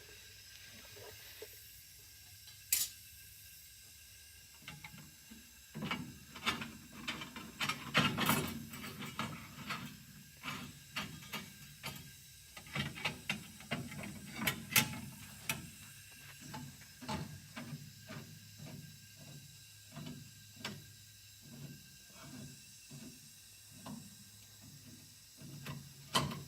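Hand ratchet wrench clicking as bolts are run in during a front disc brake conversion: one sharp click about three seconds in, then runs of quick clicks, slowing to about one a second near the end.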